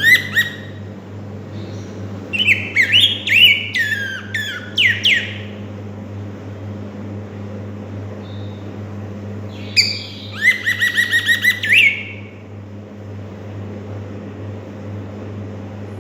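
Young black-backed grosbeak (rey del bosque) singing: two bouts of quick, gliding whistled phrases, the first about two and a half seconds in and the second around ten seconds in, over a steady low hum.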